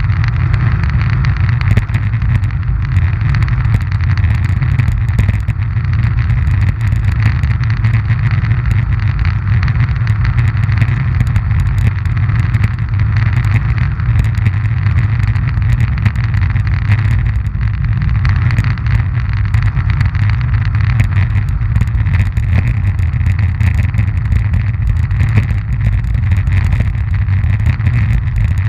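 Roller-ski wheels rolling over coarse asphalt, heard through a camera mounted on the ski: a loud, steady rumble with many small clicks.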